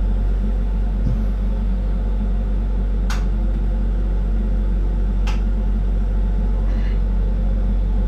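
Steady low rumble and hum of a running flameworking torch setup while glass is worked in the flame, with two brief light clicks about three and five seconds in.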